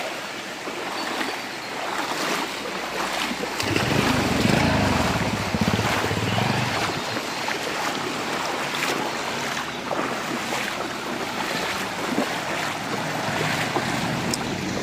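Floodwater sloshing and splashing around people wading on a flooded road, with wind on the microphone. A low rumble swells about four seconds in and fades a few seconds later.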